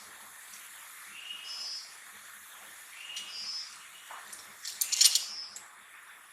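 Forest ambience: a bird repeats a two-note call about every two seconds, a short rising note followed by a higher one. About five seconds in, a brief burst of sharp clicks or cracks is the loudest sound.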